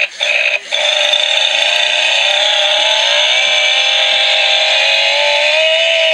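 Motorized toy chainsaw running with its built-in imitation chainsaw engine sound effect. The sound cuts out twice briefly within the first second, then runs steadily, rising a little in pitch near the end.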